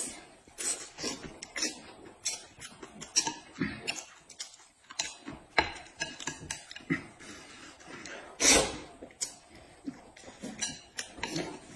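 A person eating noodles from a bowl: irregular short eating noises and clicks of utensils against the dish, with one louder noise about eight and a half seconds in.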